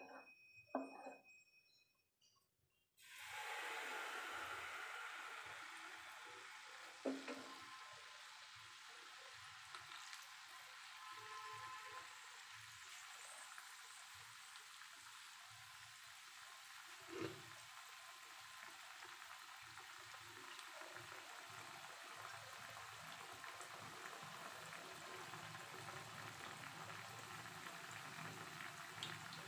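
Malpua batter dropped into hot oil, starting to sizzle suddenly about three seconds in, then frying with a steady bubbling sizzle. A few short knocks come before it and twice more along the way.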